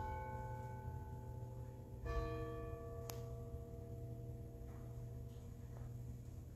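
A bell rings out from a stroke just before, then is struck again about two seconds in. Its tones slowly fade over a steady low hum.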